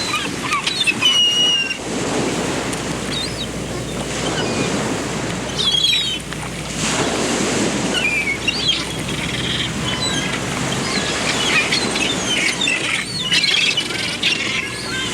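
Several songbirds chirping and calling in short, high notes and quick whistled glides over a steady rushing background noise.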